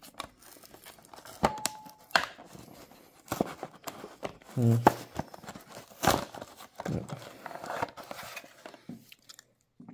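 Clear plastic toy-car packaging being handled and pried open by hand: irregular clicks, snaps and crinkles of the plastic, with a sharper snap about six seconds in.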